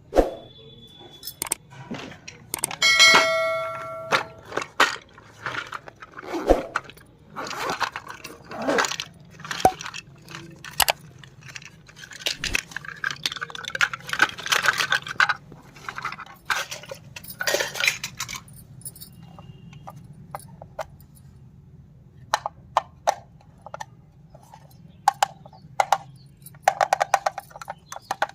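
Small miniature toy kitchen pieces being handled, with many separate clicks, clinks and light knocks. There is one ringing clink about three seconds in, and scratchy rustling stretches in the middle.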